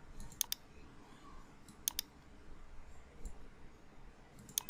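Faint computer mouse button clicks: three quick press-and-release pairs, a second or more apart.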